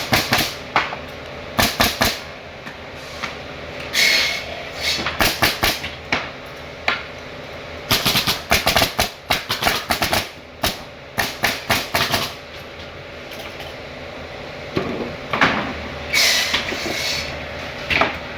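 Hammer blows on wood, struck in quick runs of several blows with short pauses between them.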